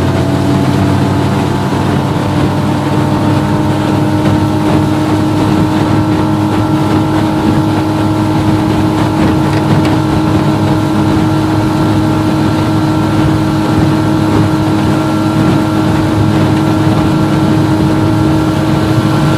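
Outboard motor on a john boat running at full throttle at a steady pitch, the boat up on plane.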